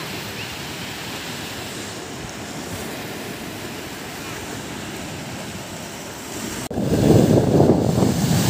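Surf washing over shoreline rocks, a steady rush of breaking waves. About two-thirds of the way in it cuts abruptly to a louder, lower rush of surf with wind buffeting the microphone.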